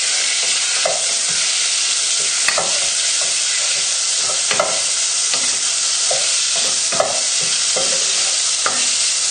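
Bacon lardons sizzling steadily as they fry in oil in a hot pan, with short light knocks of a utensil stirring them every second or two.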